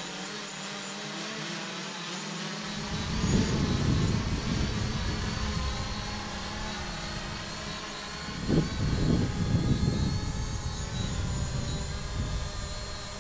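DJI Mavic Pro quadcopter's propellers whining steadily in flight. From about three seconds in, gusts of wind buffet the microphone in low rumbles that come and go.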